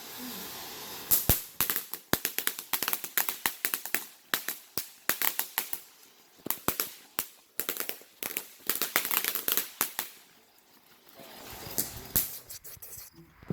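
Ground firework going off in a fast, irregular run of sharp cracks and pops for about nine seconds, then a pause and a few last pops near the end.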